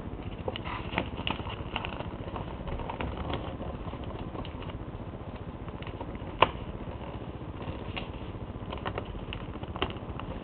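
A sheet of paper being folded and creased by hand: scattered crinkles and light taps, with one sharp crack a little past the middle, over a low steady background hum.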